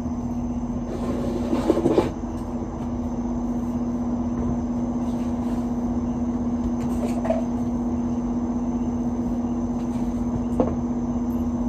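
Steady hum of a room appliance's electric motor, with one low droning tone. About a second in there are knocks and rustling from something being handled, and a single click near the end.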